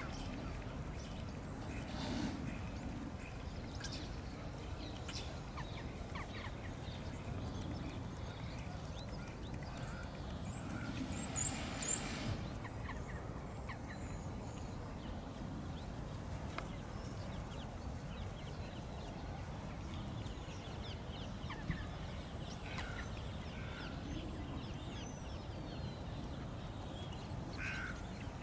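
Outdoor ambience: a steady low rumble with scattered faint, short bird chirps, and a brief louder rustle about eleven seconds in.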